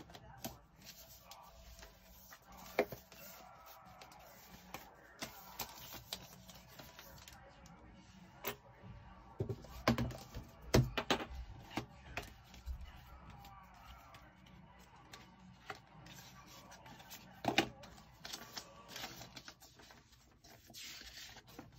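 Unboxing handling noise: a MacBook Pro and its cardboard box insert being lifted and set down, with the paper and plastic packaging rustling. Irregular taps and knocks throughout, the loudest in a cluster around ten to eleven seconds in and again near seventeen seconds.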